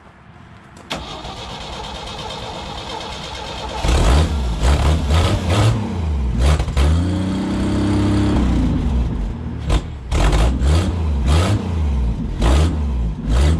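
1975 Jeep CJ5's engine cold-started: the starter cranks for about three seconds, the engine catches about four seconds in, and it is then revved several times with throttle blips, running steadily in between.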